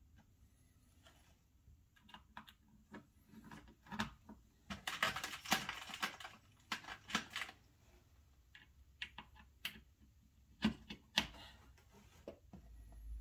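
Light clicks and taps of HO scale flex track and track pins being handled and pressed into place on cork roadbed, with a stretch of plastic-bag rustling about five seconds in.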